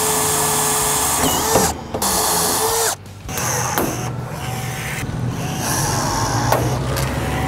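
Cordless drill boring through the steel door skin in two runs, about two seconds and then about one second. Then a battery-powered rivet gun whirs as it sets rivets for the door's storm-chain bracket, with a couple of sharp clicks.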